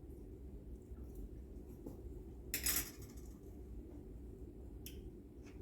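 A spoon scraping against the bowl of snow ice cream once, a short loud scrape about two and a half seconds in, then a light click near the end, over a low steady hum.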